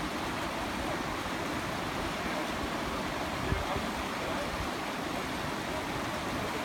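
Firehole River rushing through rapids around a stone bridge pier: a steady wash of water noise.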